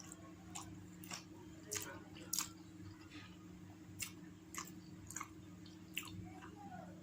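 A person chewing and biting food close to the microphone: irregular sharp wet mouth clicks and smacks, about a dozen spread unevenly, over a steady low hum.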